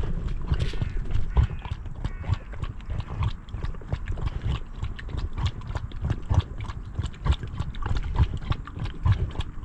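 Siberian husky lapping water from a shallow stream right at the microphone: a quick, even run of wet laps, about three to four a second.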